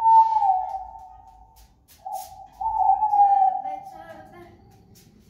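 Music with a whistle-like melody line of long held, slightly falling notes in a few phrases, with short gaps between them.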